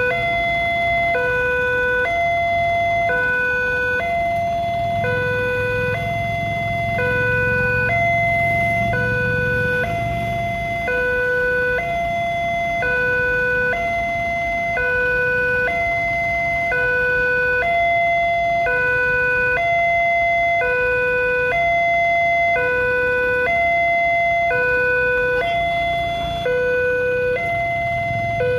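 Electronic two-tone level-crossing warning alarm of the 'Alarm Indonesia' type, alternating steadily between a lower and a higher note about once a second each, sounded while the barriers are down for an approaching train. A low engine rumble from waiting vehicles runs underneath.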